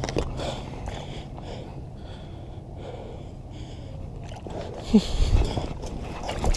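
A man breathing hard in repeated heavy breaths while he struggles to shift his weight in an inflatable vinyl kayak. There are louder bumps and a short squeal about five seconds in.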